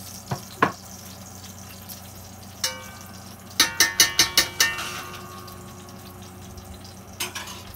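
A metal utensil clinking on cookware: two light clicks, a single ringing tap, then a quick run of about six ringing taps in a row, with a few soft clicks near the end.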